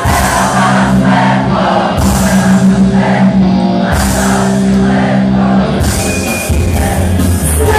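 Loud live band music played through a club PA, with held keyboard chords that change about every two seconds.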